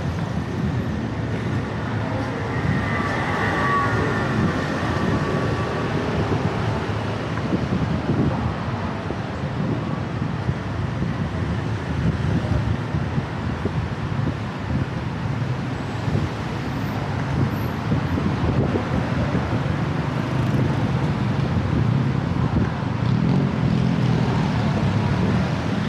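Steady city road traffic noise: cars and motorbikes running and passing through a busy intersection.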